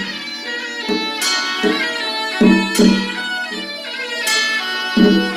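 Traditional Chinese ritual music: a bowed fiddle carrying the melody over plucked strings, with a regular low beat that thins out for a few seconds and picks up again near the end.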